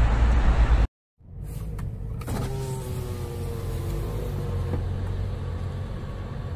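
Road noise from a passing car cuts off abruptly about a second in. After a brief silence, heard from inside a car over a low engine hum, an electric power window motor whines steadily for about three seconds.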